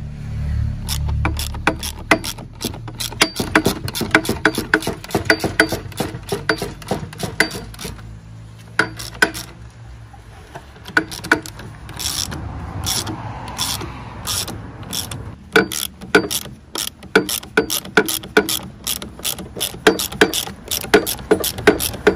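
Repeated metallic clicking of a hand tool working a nut on a Mercedes front shock absorber held in a spring compressor, in runs of several clicks a second that grow denser in the second half.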